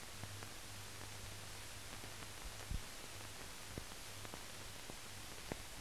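No recorded sound: steady hiss and a low hum, the noise floor of a silent film transfer, with a few scattered faint clicks, the loudest about two and a half seconds in.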